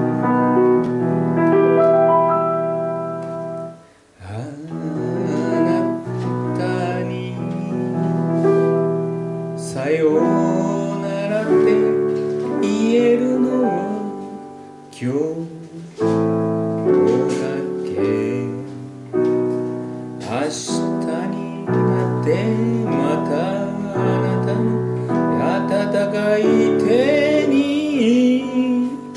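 Slow ballad-style piano accompaniment. About four seconds in, a solo singing voice comes in through a handheld microphone over the piano chords.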